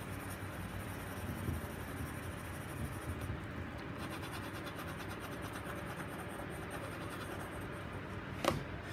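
Graphite pencil scratching across sketchbook paper in short shading strokes, with a single sharp click near the end.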